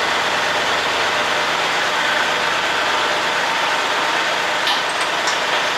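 Kubota L3301's three-cylinder diesel engine running steadily, with a couple of light clicks near the end.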